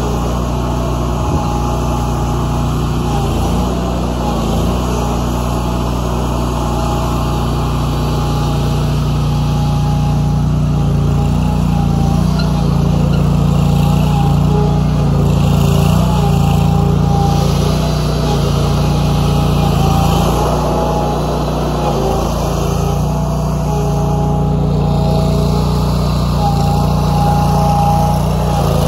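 Walk-behind tracked stump grinder's gas engine running steadily at working speed, its cutter wheel grinding through the soil and roots of a flower bed. The level rises and falls a little as the load changes.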